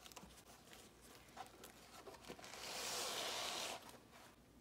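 Banana leaf rustling and crinkling as it is folded by hand, with one longer, louder rustle of about a second past the middle and a few faint handling taps around it.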